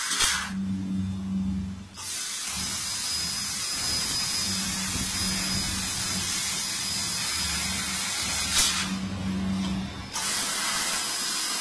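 CNC fiber laser tube cutter cutting 1 mm stainless steel pipe: a loud, steady hiss of assist gas jetting from the cutting head, which stops twice, for about a second and a half just after the start and again for about a second and a half near the end. In the pauses a low machine hum is heard.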